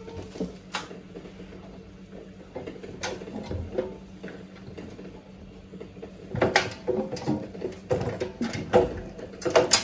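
Shoes and clothes being handled inside a front-loading washing machine drum by a small child: irregular knocks, scrapes and rustling, busier in the second half, over a faint steady low hum.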